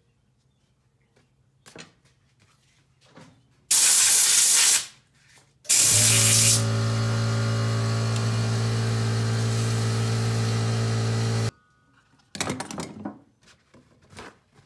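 Electric motor of a small cue lathe running steadily with a low hum for about six seconds, then stopping suddenly. Before it starts come two loud hissing blasts, the first about a second long, and a few light knocks follow after it stops.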